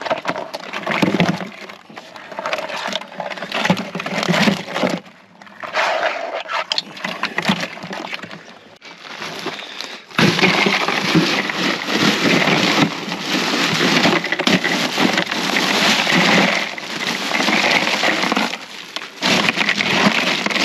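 Live mud crabs and ice clattering in an esky, with irregular hard knocks and rattles. About halfway through a dense, steady pouring sound starts and runs on until near the end, as the crabs are covered over to chill them into a stupor.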